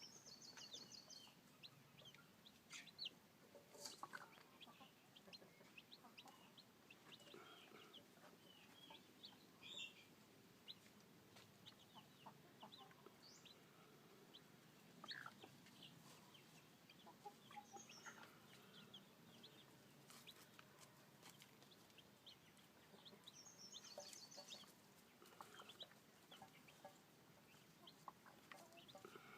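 Faint flock of newly hatched chicks peeping in short, scattered high cheeps, with lower clucking among them. A brief, very high, rapid trill sounds near the start and again near the end.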